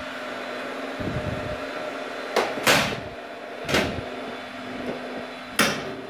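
Rack server's cooling fans running as a steady hum while its sheet-metal top cover is slid shut. A scraping clunk comes about two and a half seconds in, the loudest sound, followed by two more knocks near four and five and a half seconds.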